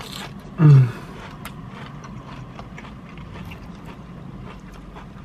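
A short hummed "mm" from a voice about half a second in, then soft eating sounds: quiet chewing with small clicks and taps as a plastic fork picks fries from a paper cup, over a low steady background hum.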